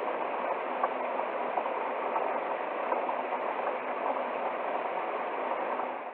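Waterfall: a steady, even rush of falling water that cuts off suddenly at the very end.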